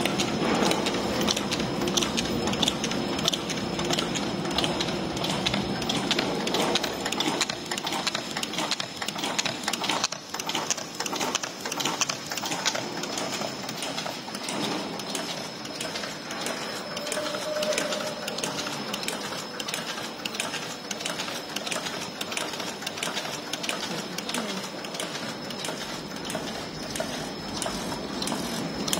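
AS-650 automatic folder gluer running while folding narrow crash-lock bottom cartons: a steady mechanical clatter of belts, rollers and carton blanks passing through, made of rapid close ticking, with a thin steady high tone above it.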